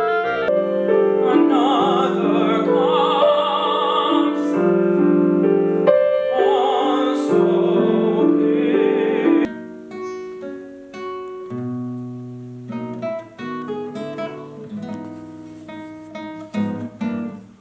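Live music: a singer holds notes with wide vibrato over piano chords. About nine and a half seconds in it cuts suddenly to quieter piano playing alone.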